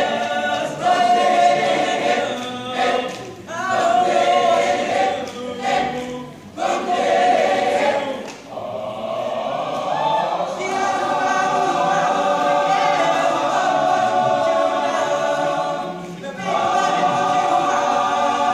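Men's choir singing in harmony: short phrases with brief breaks at first, then longer held chords from about ten seconds in.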